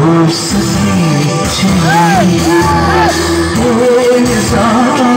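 Loud song playing, with singing over a steady backing of held notes; about two seconds in, a few short notes slide up and back down.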